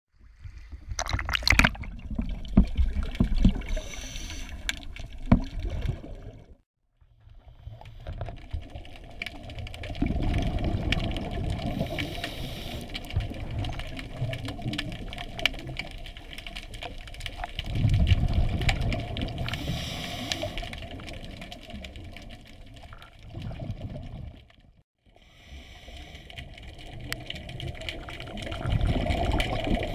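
Water sloshing and splashing against the camera at the diver's head at the surface, breaking off abruptly. Then underwater, the rush of a scuba diver's exhaled regulator bubbles swells up about every eight seconds over a steady low hum.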